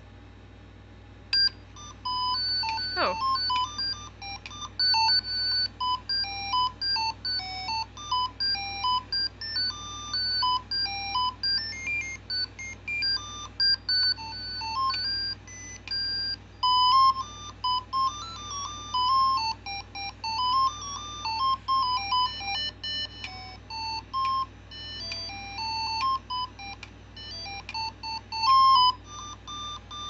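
Tekno robotic parrot toy playing one of its songs: a tune of quick stepped electronic beeps starting about a second and a half in, with a fast downward swoop early in the tune.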